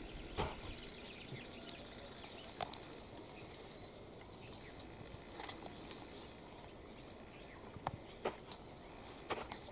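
Faint outdoor ambience in scrubland, with scattered short, sharp clicks and snaps spread irregularly through it.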